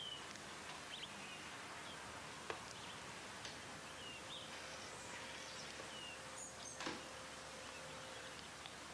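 Quiet background hiss with a faint steady hum, a few faint, short high chirps, and two soft ticks, one about two and a half seconds in and one near seven seconds.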